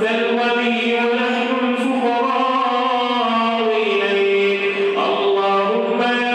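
A man's voice chanting an Arabic supplication (du'a) in long held notes that slide slowly from pitch to pitch, stepping up to a higher note near the end.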